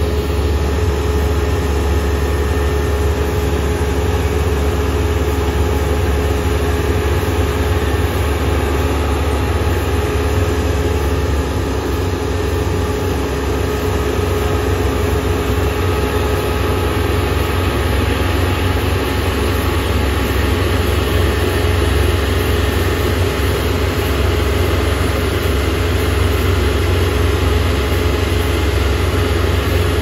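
Kubota ER470 combine harvester's diesel engine and threshing machinery running steadily as it cuts rice: a loud, even low drone with a constant hum over it.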